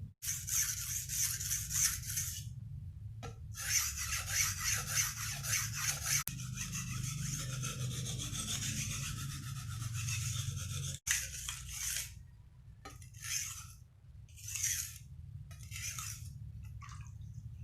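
Abrasive scrubbing against the steel blade of a rusty nakiri knife: quick back-and-forth strokes in several spells with short pauses between them, over a steady low hum.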